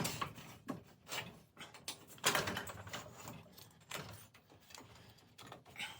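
Metal parts clinking and scraping as a garage door torsion spring is slid onto its torsion shaft: a sharp click at the start, a cluster of knocks a little over two seconds in, and quieter scraping between.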